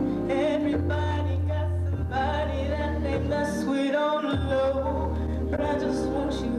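A woman singing live into a handheld microphone, her voice wavering in pitch on held notes, over instrumental accompaniment with long sustained bass notes.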